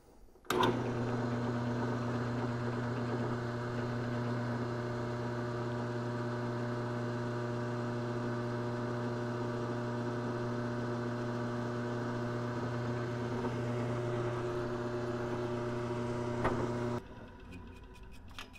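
Drill press switched on about half a second in, its motor running with a steady hum while a center drill cuts a starting hole in a metal plate. It switches off abruptly near the end.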